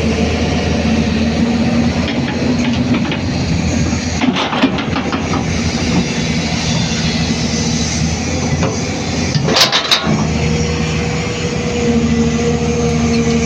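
Hyundai 215 hydraulic excavator's diesel engine running steadily. There is a brief rattle about four seconds in and two sharp metallic clanks just before ten seconds, after which the engine note shifts slightly.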